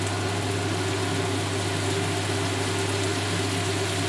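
Tomato and green pepper sofrito sizzling steadily in a frying pan, over a steady low hum.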